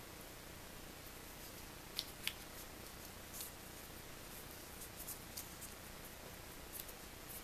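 Faint handling of a thin strip of origami paper being folded and creased by hand over a steady hiss: two sharp crackles about two seconds in, then a few softer rustles and ticks.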